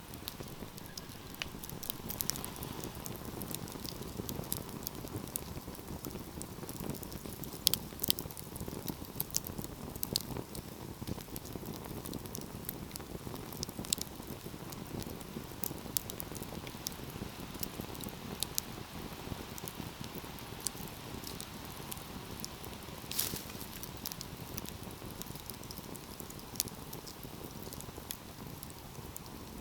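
Wood fire crackling in a fireplace: irregular sharp pops and snaps over a steady low rush of burning, with a couple of louder pops about eight seconds in and again past the twenty-second mark.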